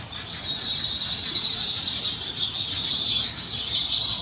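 A steady, high-pitched, fast-pulsing chirring chorus of animals.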